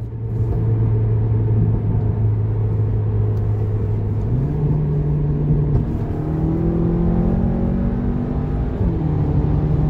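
Engine of a stage 2 tuned, turbocharged Audi A3, heard from inside the cabin while driving under acceleration. The note holds steady, steps up in pitch a little after four seconds, climbs slowly, then drops slightly near the end, over steady road rumble.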